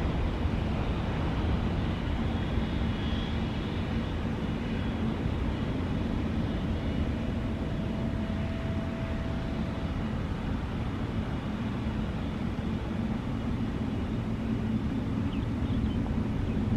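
Steady jet-airliner noise from a Boeing 777-300: a continuous low rumble with hiss above it.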